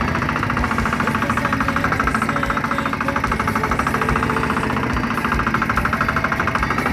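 A small fishing boat's engine running steadily with a fast, even pulse.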